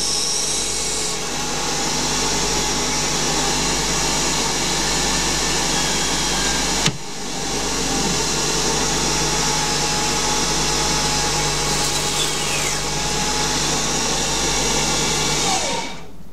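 Small CNC lathe running at about 3000 rpm while turning a Delrin bush: a steady whir from the spindle and chuck, with several steady whining tones. The sound breaks off briefly about seven seconds in. Near the end the pitch falls and the level drops as the spindle runs down.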